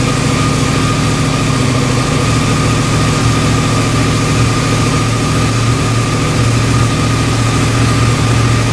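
2009 Yamaha YZF-R1 crossplane inline-four idling steadily through its stock exhaust, an even loud run with no revving.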